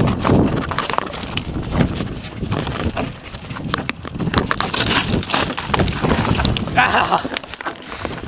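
YT Industries Capra AL Comp mountain bike rolling slowly over loose rock and stones: tyres crunching, with many clicks and knocks as the bike clatters over the rubble. Wind rumbles on the microphone throughout.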